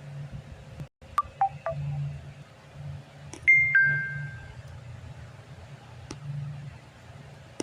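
Samsung phone notification sounds: a few short blips just after a second in, then a two-note falling chime about three and a half seconds in, over a faint steady hum.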